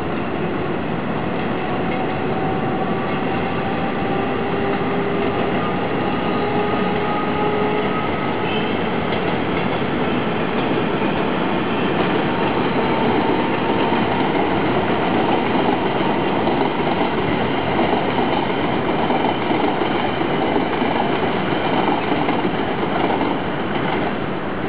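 Passenger train running along an elevated railway viaduct: a continuous rumble of wheels on rails, with faint whining tones that rise slightly in pitch over the first several seconds, a little louder in the middle.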